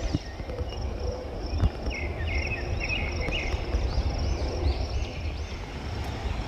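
Steady low rumble, the sound of riding a mountain bike on a dirt trail, with short high chirps repeating over it.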